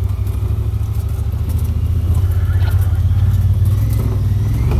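Off-road vehicle's engine running steadily on a trail, a low drone that slowly gets louder.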